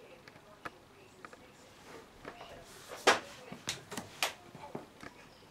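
Handling noise: scattered clicks and knocks with a little rustling, the loudest a sharp knock about three seconds in, followed by two more within the next second.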